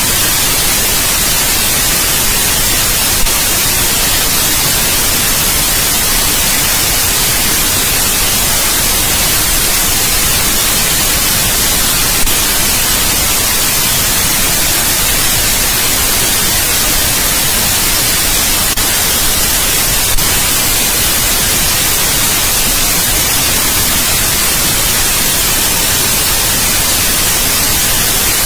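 Steady white noise: an even, unbroken hiss across all pitches, brightest in the treble, with a few faint clicks.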